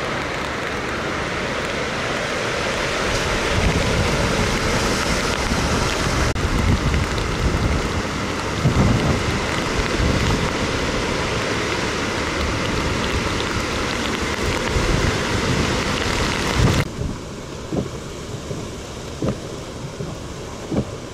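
Hurricane wind and rain: a steady, dense noise of wind-driven rain, with low gusts rumbling on the microphone. About three-quarters of the way through the noise drops sharply, leaving quieter wind with separate gusts thumping the microphone.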